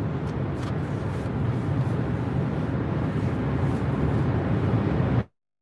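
Steady road and engine noise of a car at freeway speed, heard from inside the cabin. About five seconds in it cuts off abruptly to dead silence.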